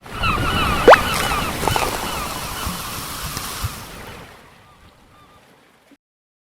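A rushing, surf-like noise with rows of short repeated calls and a rising whistle about a second in, fading away after about four seconds.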